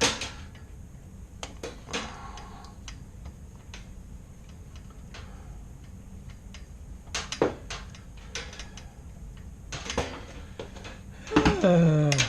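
Scattered light clicks and knocks from handling dryer-vent cleaning brush rods. Near the end comes a louder sound, about a second long, whose pitch slides down.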